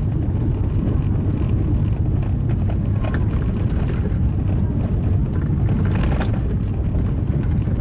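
A car driving on a gravel road: a steady low rumble of tyres and engine, with stones crackling and knocking under the tyres and a couple of sharper knocks about three and six seconds in.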